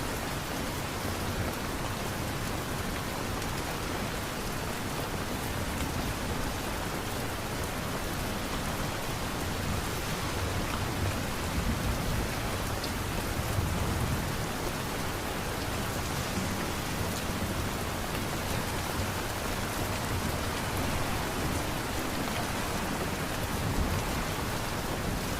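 Steady rain falling, an even hiss of many drops, with a low rumble swelling in the middle.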